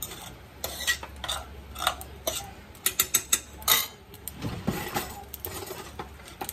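A serving spoon scraping and clinking in a pot while scooping out rice pilaf, a string of irregular short scrapes and clicks.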